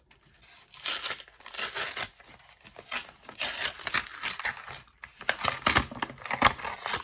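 Crinkly plastic packaging of a Pokémon card product being handled and torn open to get at two booster packs: irregular bursts of crinkling and tearing.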